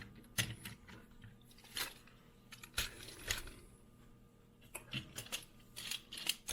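Small die-cast metal toy cars clicking and clinking as they are handled and set down. It is a scatter of light taps, coming more closely together near the end.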